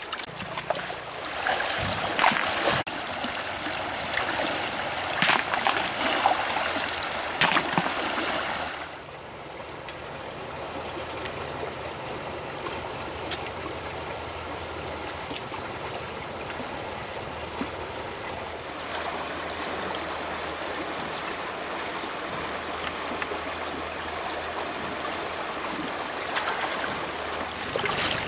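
Stream water running steadily. For the first several seconds, wet mud is scooped and slapped by hand with squelching splashes.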